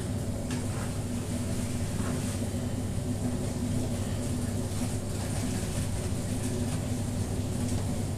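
Steady low hum under a wide pan of chopped bopis being stirred with a wooden spatula, with a few faint scrapes of the spatula through the meat.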